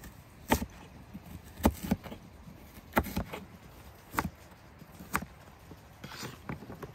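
Crinkle-cut knife chopping through raw quince and striking a wooden cutting board: about seven sharp knocks at an uneven pace, roughly one a second, fainter near the end.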